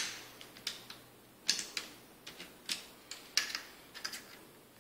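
Screwdriver tip and fingertips clicking and tapping on the plastic parts of an HP ProBook 4515s laptop as its Bluetooth module is unclipped: about a dozen light, irregular clicks.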